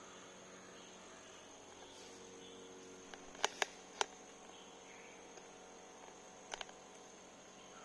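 Faint steady high-pitched tone, like an insect's trill, over a low hum, with three sharp clicks about halfway through and a quick double click near the end.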